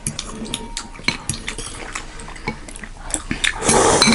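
Spoon and fork clinking and scraping against bowls of thukpa noodle soup, with a loud slurp of soup and noodles near the end.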